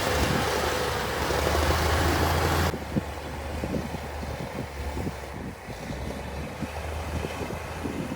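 Heavy diesel construction machinery running with a steady low engine rumble. The sound is loud and noisy for the first two to three seconds, then drops suddenly to a quieter engine sound with light, irregular knocks and clanks.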